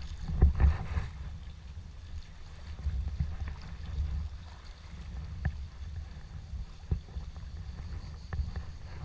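Water lapping and splashing around a Prijon Seayak 500 LV sea kayak, with small drips and ticks scattered throughout and a couple of louder splashes about half a second in. Under it is a steady low rumble of wind on the microphone.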